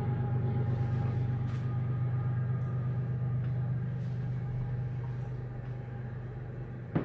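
CSX diesel locomotive engine heard as a steady low drone that slowly fades. A single sharp click comes at the very end.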